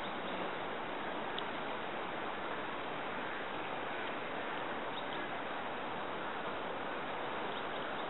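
Steady, even rushing of a fast-flowing river in spring flood.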